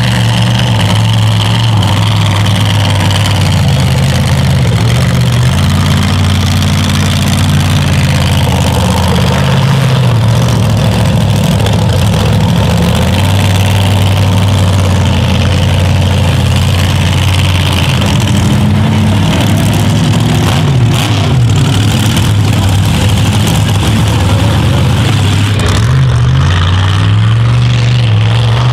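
Engine of a 1520 hp mega truck running loud, holding steady revs with shifts in pitch and revving up and down about two-thirds of the way through.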